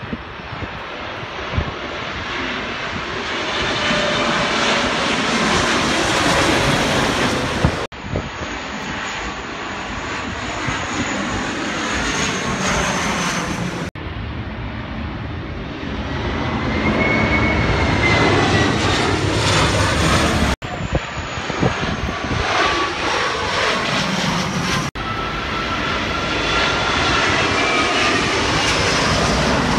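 Jet airliners passing low overhead on landing approach, their engine noise swelling as each one comes over, with a faint high whine above it. The sound cuts off abruptly about four times where one clip gives way to the next.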